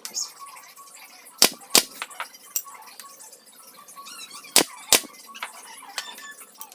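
Sharp knocks on wood in two pairs, about a second and a half in and again near five seconds, with a few lighter taps and clicks between.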